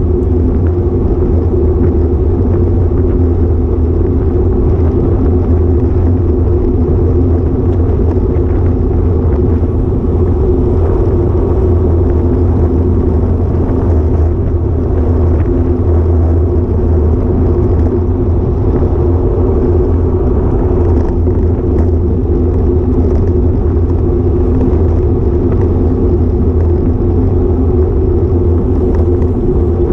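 Steady, loud rumble of wind buffeting and road vibration picked up by a GoPro Hero5 Session camera on a road bike while riding.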